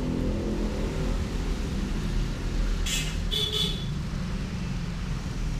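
Steady low rumble of motor traffic, with two short high-pitched sounds about three seconds in.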